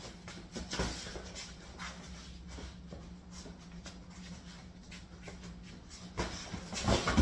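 Scuffling feet and soft thumps of gloved punches during a boxing sparring bout, with a cluster of louder hits about six to seven seconds in.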